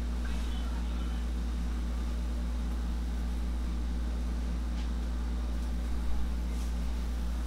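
Steady low hum of a room air conditioner running. A couple of soft thumps from handling on the massage table about six seconds in.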